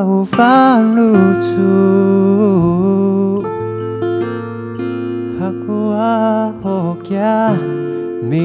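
A man singing a slow song in the Amis language, accompanying himself on acoustic guitar. Sung phrases come near the start, about two and a half seconds in, and again around six to seven seconds, over sustained guitar chords.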